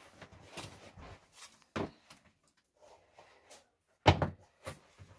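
Scattered handling noises: soft knocks and rustles, with one sharp, loud knock about four seconds in as a hand reaches down to things on a wooden floor.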